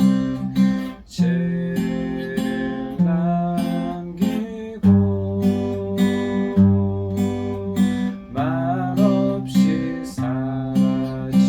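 Acoustic guitar played fingerstyle in a 3/4 waltz arpeggio: the thumb plucks a bass note on the first beat, then the fingers pluck the top three strings on the next two beats ("kung-jjak-jjak"), with the chord changing every bar or two.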